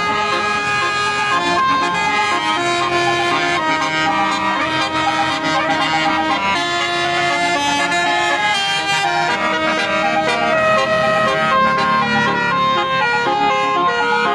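Basuri 'telolet' multi-tone air horn playing a melody: sustained notes that change pitch in steps.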